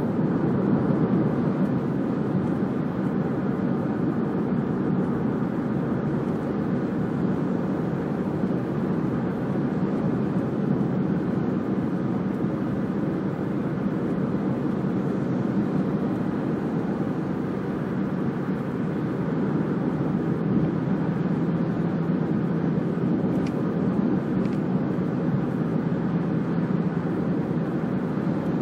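Steady drone of engine and tyre noise inside a moving car's cabin, at an even level throughout.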